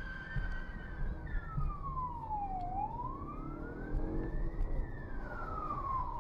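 Police car siren wailing in a slow rise and fall, heard from inside the pursuing patrol car, over a low rumble of engine and road noise.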